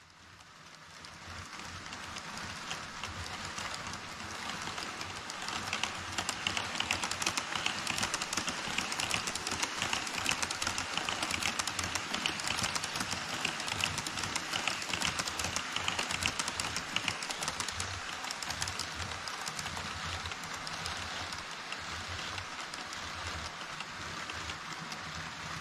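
HO scale model trains, an EF65-hauled freight and an E5 Shinkansen, running across a model truss bridge on KATO Unitrack. Their wheels make a dense, fast, rain-like clatter that builds over the first few seconds and is loudest in the middle.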